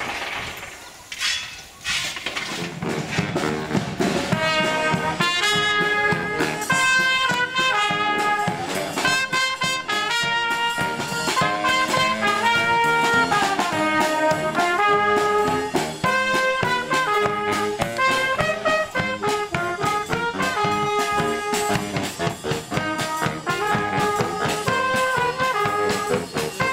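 Small street band of trumpets with bass drum and snare drum playing a tune, starting about two seconds in after some brief noise.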